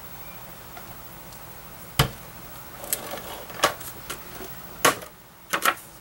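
Hands working paper and cardstock while gluing down a photo mat: a sharp tap about two seconds in, then a string of lighter taps and paper clicks.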